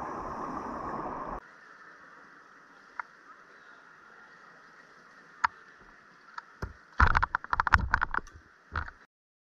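Muffled underwater rushing from a camera in a pool, with a diver's exhaled bubbles rising. It cuts off abruptly after about a second and a half. Quieter room tone follows, with a few sharp clicks and then, near the end, a loud burst of knocks and clattering.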